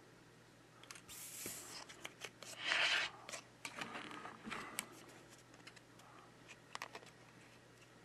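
Plastic opening pick scraping and slicing through the adhesive under an iPad Air 4's screen. It moves in irregular scratchy strokes with small clicks of plastic against the frame, and the loudest stroke comes about three seconds in.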